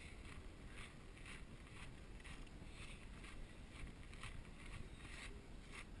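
Footsteps crunching on dry desert gravel and sand at a walking pace, about two steps a second, over a low rumble of wind on the microphone.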